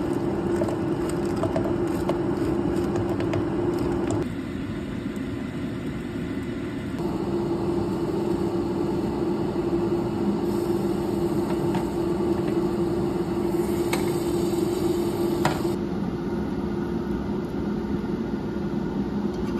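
A steady motor hum with a constant low tone runs throughout. In the first few seconds frozen blueberries clatter as they are poured into a blender jar.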